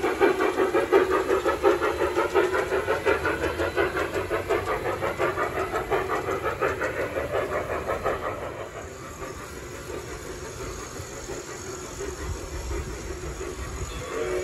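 Large-scale model steam locomotive's sound unit chuffing steadily at about four beats a second, with the train's wheels rolling on the track. The sound drops off after about eight seconds as the train moves away.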